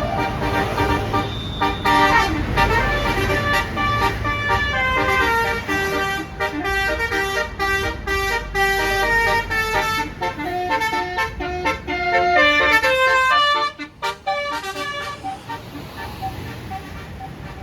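Bus Basuri telolet horn playing a fast melody of stepped, multi-tone horn notes for about fifteen seconds, then cutting off. The bus engine's low rumble is left underneath.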